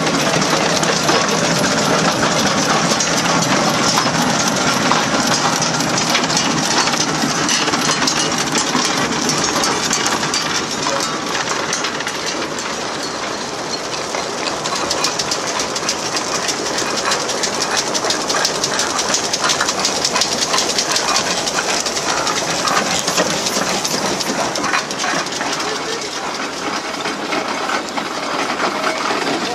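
Steam traction engine on the move: a steady hiss of steam with a rapid metallic clatter from its running gear.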